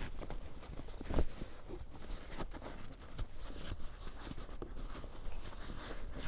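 Heavy canvas tent fabric rustling and crinkling as hands work the flap closed, with small scattered clicks and scrapes and one sharper click about a second in.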